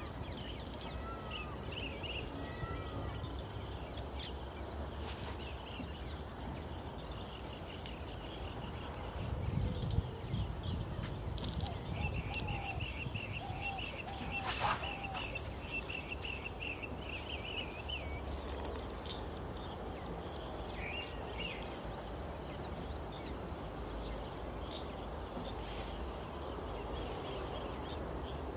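Outdoor ambience of insects: a steady high drone with repeated buzzy chirps, and scattered bird calls, including a rapid trill of notes about halfway through. A brief low rumble comes about a third of the way in, and a single sharp click follows a little later.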